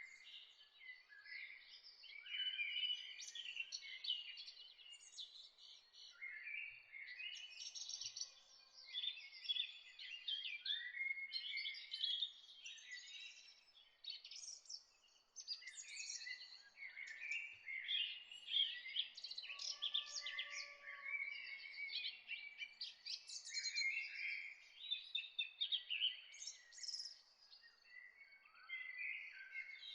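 Morning chorus of several songbirds, overlapping chirps and trills with no pause, over a faint hiss of background noise.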